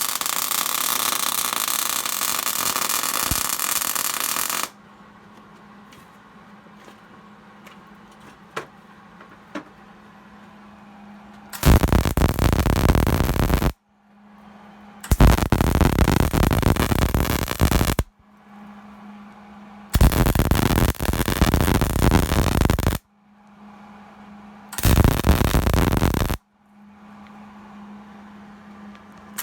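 Arc welding in short runs: four loud crackling bursts, each lasting one and a half to three seconds, with a low steady hum in the gaps between them. A loud steady noise runs before the first burst and cuts off about five seconds in.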